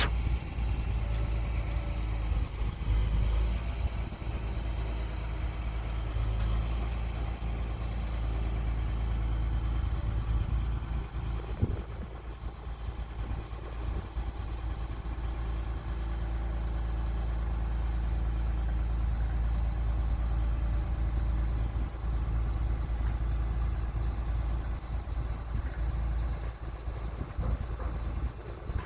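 Heavy diesel engine running steadily with a deep low rumble, and a single sharp click near the middle.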